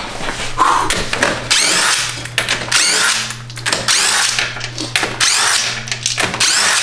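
Cordless impact wrench hammering a car's wheel lug nuts loose in several short bursts, each about half a second to a second long.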